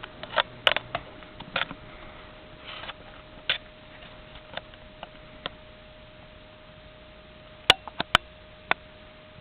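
Sierra Victorian Copy ceiling fan running with a steady hum, among a dozen or so irregular sharp clicks, several loud ones close together about eight seconds in.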